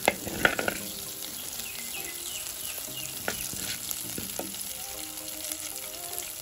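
Mustard and fenugreek seeds frying in hot vegetable oil in a clay pot. A few spoon scrapes stir them in the first second, then a steady sizzle with an occasional sharp pop.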